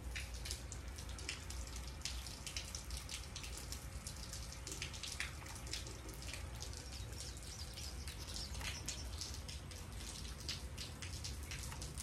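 Rain dripping and pattering onto wet concrete and puddles: many small, irregular ticks of falling drops over a steady low rumble.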